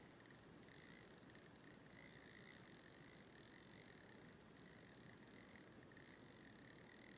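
Near silence: a faint, steady hiss of mountain-stream ambience, with a faint high tone that pulses about twice a second throughout.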